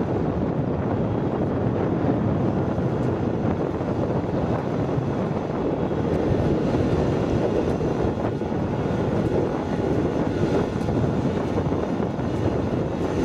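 Riding rice transplanter's engine running steadily as it works through a flooded paddy, with some wind noise on the microphone.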